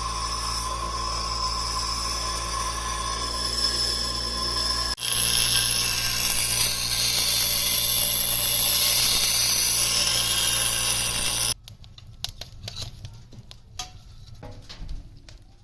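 An electric power tool running steadily, then, after an abrupt change about five seconds in, a louder, hissier power-tool sound for about six seconds. It stops suddenly, leaving scattered light clicks and taps.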